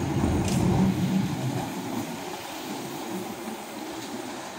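Two-car Keihan Ishiyama Sakamoto Line high-floor tram running over street track: a low rumble of wheels and motors that fades as it moves away, with a sharp click about half a second in.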